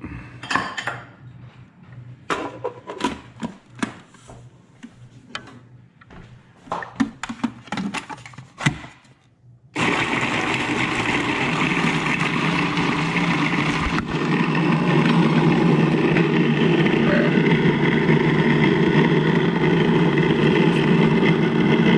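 A series of knocks and clatter, then about ten seconds in a Cuisinart food processor's motor starts and runs steadily, chopping celery and onion. It gets louder a few seconds later.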